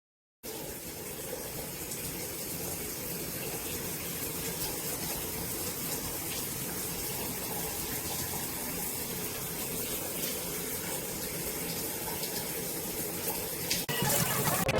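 Water running steadily from a shower fixture, starting abruptly about half a second in.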